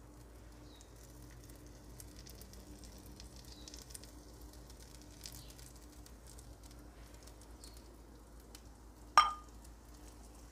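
Faint sizzling of a stuffed flatbread toasting in a frying pan on low heat, with melted butter being brushed over its top. A single sharp knock about nine seconds in.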